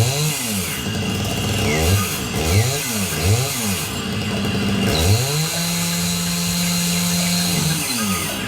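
Film trailer soundtrack played back through a pair of Edifier R1280DB bookshelf speakers: a run of low swooping pitch sweeps that rise and fall, then a held low tone for about two seconds in the second half, over a constant noisy rumble.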